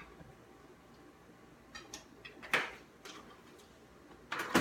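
Homemade glue slime being squeezed and worked by hand: a few short, sticky clicks and squelches, with a louder one near the end.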